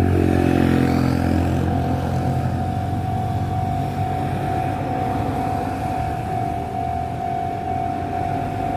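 Enoden electric train running through a level crossing, its motor hum strongest and dropping slightly in pitch over the first couple of seconds, then easing off. A steady high tone sounds throughout.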